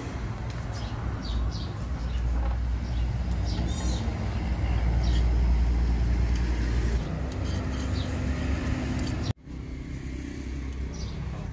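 A motor vehicle's engine running steadily as a low rumble, swelling to its loudest about five to seven seconds in, with short bird chirps above it. The sound drops out abruptly for an instant a little after nine seconds in, then carries on.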